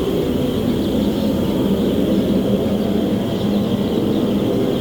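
Steady low rumbling drone with the faint, continuous peeping of a brood of week-old chicks above it.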